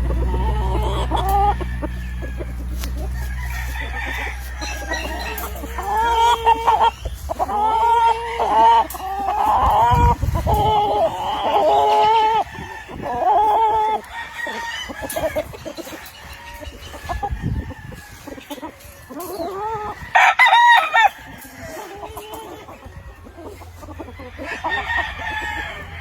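Several gamefowl roosters crowing in turn, overlapping, with some clucking between the crows. The crows come thick in the middle, and one loud, close crow comes about twenty seconds in.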